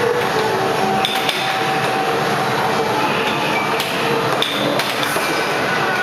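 Air hockey mallets hitting the puck and the puck knocking against the table's rails: a handful of sharp knocks over steady background noise.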